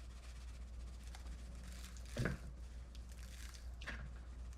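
Faint handling sounds of raw chicken being seasoned by hand: soft squishing and rustling with two light taps, over a low steady hum.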